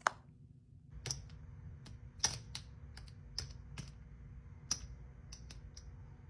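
A series of sharp, irregularly spaced clicks, about a dozen, with the loudest one right at the start.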